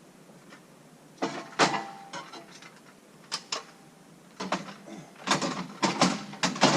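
Irregular wooden knocks and clattering of framing lumber being shifted and pulled: a short cluster about a second in, two knocks near three and a half seconds, then a busier run of knocks from about four and a half seconds on.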